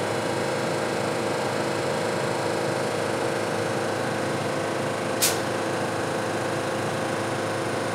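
Steady hum of a stopped R62 subway car, its ventilation and onboard equipment running with several steady tones. About five seconds in, one short, sharp hiss of air, typical of the train's pneumatic brakes venting.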